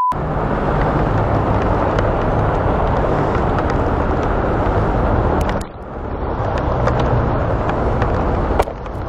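A sudden heavy rain downpour, a steady hiss of rain with single drops striking close to the microphone as sharp clicks.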